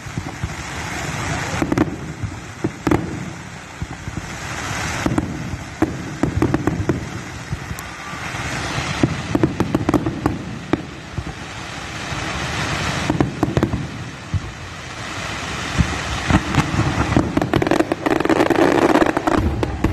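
Fireworks display: irregular sharp bangs and pops throughout, over a rumbling, crackling background that swells and fades every few seconds and is loudest near the end.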